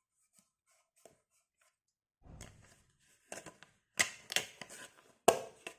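Product packaging being handled: a run of sharp clicks and knocks with some rustling, the loudest about four seconds and just over five seconds in.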